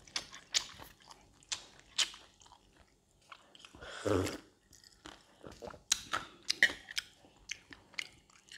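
A person chewing a mouthful of fried rice with crispy fried pork cracklings: a string of small wet crunches and clicks. About four seconds in comes one louder, longer gulp as a drink is swallowed from a glass.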